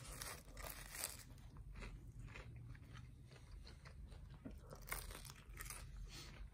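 Faint crunching of a pastry pie's crust being bitten and chewed, with scattered soft crackles and a couple of slightly louder crunches.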